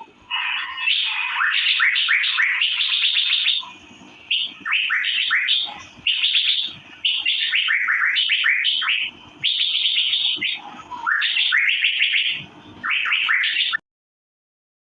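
Asian fairy-bluebird (cucak biru) singing in phrases of rapid, quick chirping notes that sweep up and down, with short pauses between phrases. The song cuts off abruptly near the end.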